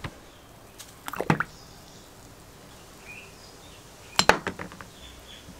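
Two short bursts of clinking and clatter, one about a second in and a louder one about four seconds in, as rusty iron burner parts and their container are handled during a soak in a foaming rust-removing bath. Between them the foaming liquid fizzes faintly.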